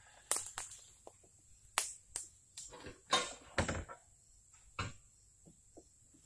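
Irregular knocks and clunks of equipment being handled at a small cart, about a dozen over four seconds, with a longer, rougher clatter about three seconds in and a last knock near five seconds.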